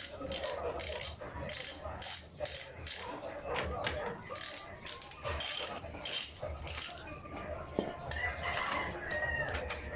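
Ratchet wrench clicking in short repeated strokes, about two a second, as a bolt is turned during a frame-slider install.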